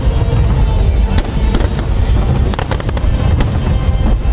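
Large fireworks salute going off in quick succession: a continuous low rumble of booms with many sharp cracks on top.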